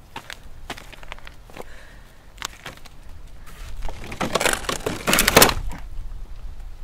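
Dry cracking and crunching as a dried steer carcass's hide, horn and bone are handled and pulled at: a few scattered cracks, then a dense burst of cracking about four seconds in.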